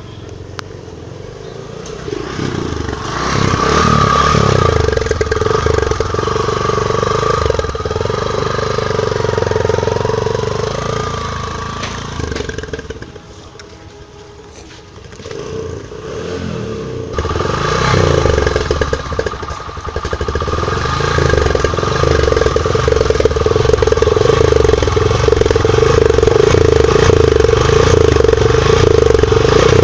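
Motorcycle engine running through its exhaust. It picks up about two seconds in, eases off to a low idle around the middle, then picks up again and holds a steady note.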